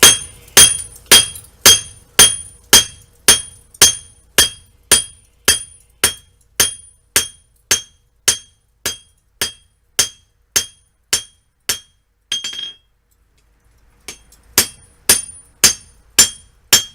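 Blacksmith's hammer striking hot steel on an anvil at a steady rhythm of about two blows a second, with the anvil ringing at each blow. Past the middle there is a pause of about a second and a half, then the hammering resumes.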